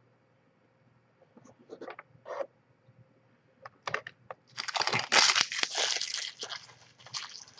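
Crinkling and crunching of packaging being handled, with scattered small clicks and a louder, denser stretch of crinkling about halfway through that lasts about two seconds.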